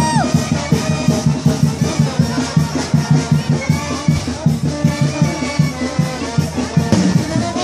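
Latin band music with brass and a quick, steady percussion beat.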